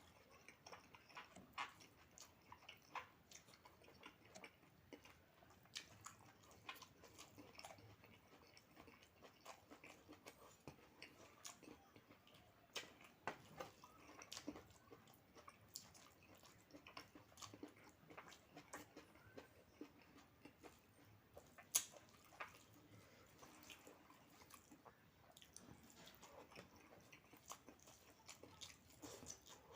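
Quiet close-up eating sounds: a person chewing and biting food, with many small irregular clicks and smacks. One sharper click about two-thirds of the way through is the loudest.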